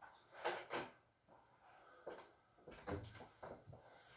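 A few short knocks and clunks, the two loudest close together about half a second in, then several softer ones.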